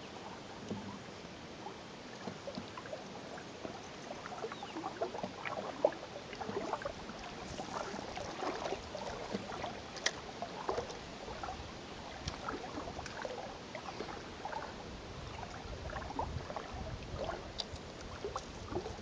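Small water splashes and lapping against an inflatable pontoon boat's tubes as it moves through the water, with scattered light clicks and one sharp tap about six seconds in.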